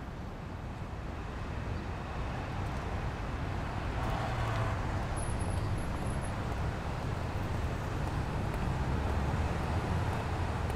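Steady street traffic noise: an even low rumble of city traffic.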